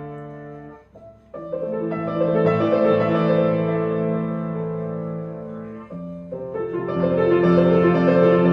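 Piano playing a gentle melody in phrases. It breaks off briefly about a second in and dips again near six seconds: these are the little gaps between phrases that serve as the cue for movers to stop.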